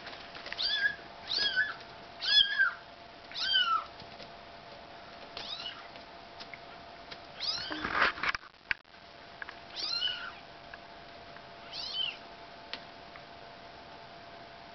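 Bengal kitten mewing in short, high-pitched calls, about eight of them spread across the stretch, several in quick succession at first. A louder, noisier sound comes about eight seconds in.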